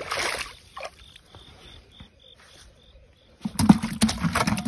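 Water splashing as a hand grabs into a shallow muddy pool. A high chirp then pulses about four times a second in the quiet. About three and a half seconds in, loud wet thrashing and sloshing starts as eels writhe in a plastic bucket.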